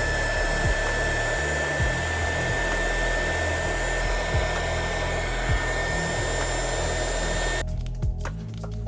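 Hot-air heat gun blowing, with a steady high fan whine, used to shrink heat-shrink tubing over soldered wire splices; it cuts off suddenly near the end.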